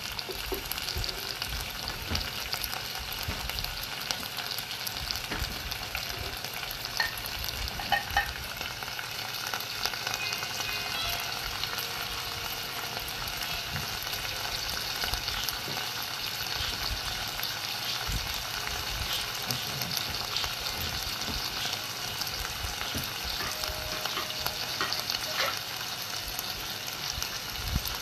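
Broccolini, diced onion and basil sizzling in a nonstick saucepan with a splash of water: a steady crackling sizzle with a few brief clicks.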